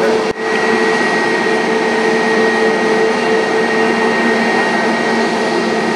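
Jet engines of an Airbus A350-900 (Rolls-Royce Trent XWB turbofans) running at low taxi power: a steady whine with a high tone over a broad rush. The sound drops out for a moment about a third of a second in.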